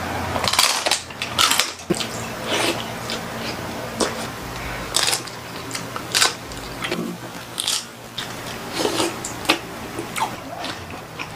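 Close-miked mukbang eating sounds: repeated crunchy bites into crispy roast pork, and chewing.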